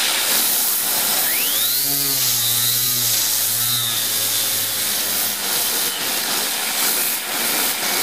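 Loud hiss of a steam jet from a homemade boiler blowing onto a small homemade steam turbine, spinning it. About a second in, a high whine rises and then holds at a steady pitch as the turbine spins up.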